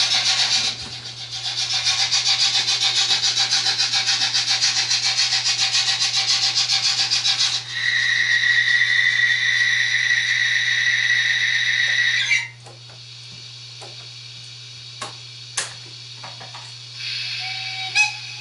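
Model train rolling on the layout's track: a loud rasping noise of wheels and running gear, joined after about eight seconds by a high steady squeal. It cuts off abruptly, leaving a low hum and a few sharp clicks.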